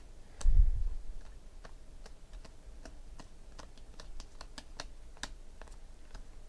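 Stack of Panini Prizm basketball cards being flipped through by hand, the stiff glossy cards clicking against each other in quick, irregular ticks. A dull low thump about half a second in is the loudest sound.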